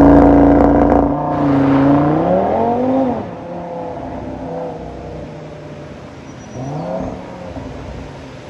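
Car engine revving: held high at first, revving up again and dropping back to a steady idle about three seconds in, then one more short blip near the end.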